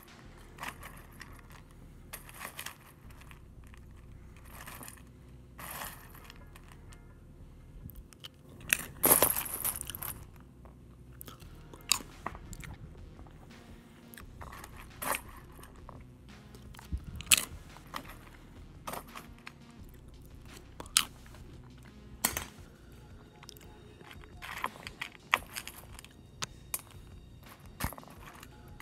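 Dry, slightly stale Cheerios being picked from a metal bowl with wooden chopsticks and chewed: irregular crunches and clicks, with a louder burst of crunching about nine seconds in.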